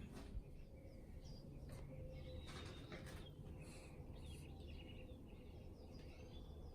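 Faint birds chirping in short scattered calls over a steady low background rumble, with a few soft clicks.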